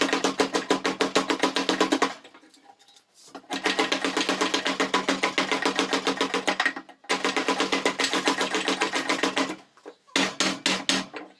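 Motorised coil-winding machine winding alternator field coil wire, running with a fast, even clicking over a steady hum. It stops and restarts several times, with a pause of about a second two seconds in and shorter breaks near seven and ten seconds.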